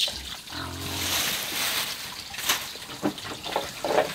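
Spice seeds dry-toasting in a hot metal wok over a wood fire, with a hiss and scattered sharp crackles and pops. A short low hum sounds about half a second in.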